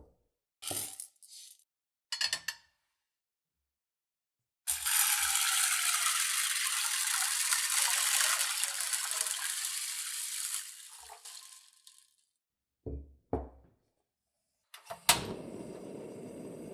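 Dried azuki beans rattling briefly in a stainless steel pot, then a long steady pour of water into the pot. Near the end, two knocks, then a sharp click as a gas stove burner lights, followed by the steady hiss of its flame.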